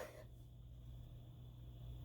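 The last of a sneeze dies away right at the start, then near silence: faint room tone with a steady low hum.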